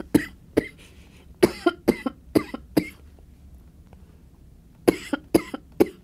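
A woman's short, dry coughs and throat-clearing in two clusters: a run of quick coughs in the first three seconds, then a few more near the end.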